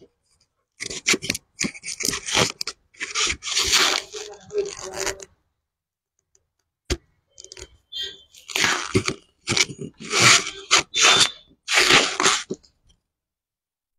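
Crinkling and rustling of something being handled, in two spells of about four and five seconds with a short pause between them and a single sharp click in the pause.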